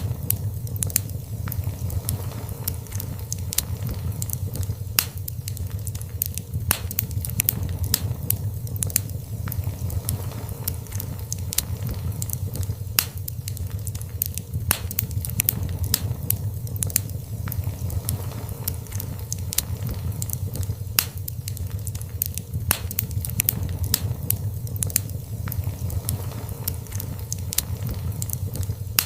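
Wood fire burning in a fireplace, with a low steady rumble and frequent irregular sharp crackles and pops.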